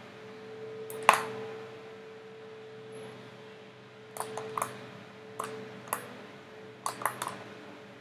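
Scattered sharp clicks of a computer mouse, about eight of them, the last few close together, over a steady faint hum.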